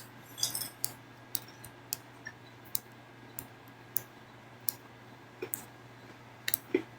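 Irregular sharp clicks, roughly one or two a second, over a faint steady low hum.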